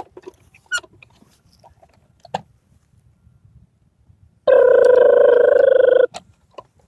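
A loud, steady buzzing tone held at one pitch for about a second and a half, starting and stopping abruptly a little past halfway; before it, only a few faint clicks and rustles.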